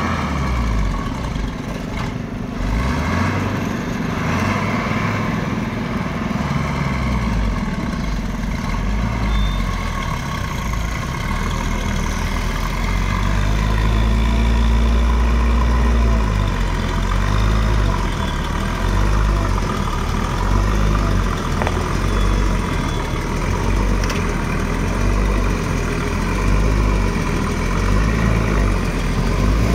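Diesel engine of a heavily loaded sugarcane truck pulling slowly under load, a deep low rumble. It swells in revs and level about halfway through and stays up.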